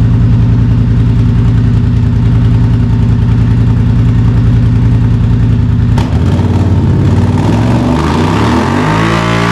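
An engine idling steadily, then a sudden cut about six seconds in to background music.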